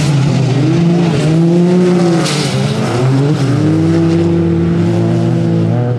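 Autocross racing buggy engines revving hard, the pitch rising and falling repeatedly as they accelerate and lift off, then holding high for about two seconds near the end.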